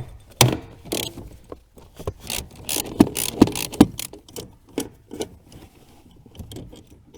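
Irregular metal clicks and clinks of a 12 mm socket on a universal joint and extension being worked to undo the clamp bolt joining the steering shaft to the steering rack.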